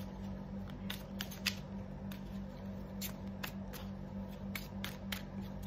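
A deck of tarot cards being shuffled in the hand: a series of crisp, irregular card clicks over a steady low hum.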